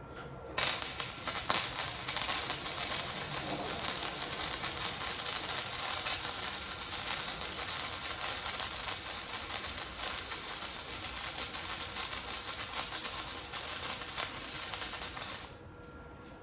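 Welding arc from a small Chicago Electric welder crackling steadily as a weld is run, starting sharply about half a second in and cutting off about a second before the end.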